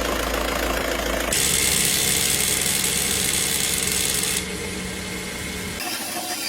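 Car engine sounds in a series of short clips that cut abruptly from one to the next, about a second in, past the middle and near the end, with rattling and vibration.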